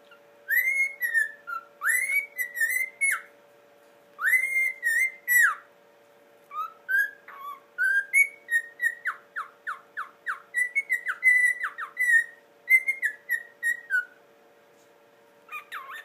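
Cockatiel whistling a melody in three phrases with short pauses between them. The last and longest phrase is a run of quick repeated notes, and one brief call comes near the end.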